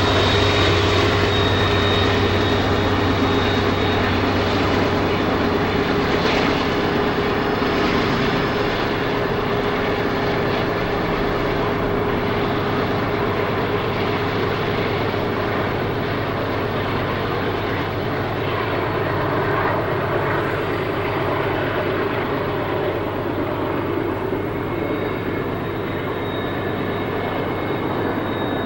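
Southern Pacific diesel freight locomotives working upgrade, a continuous engine drone with a steady whine, fading slowly as the train pulls away.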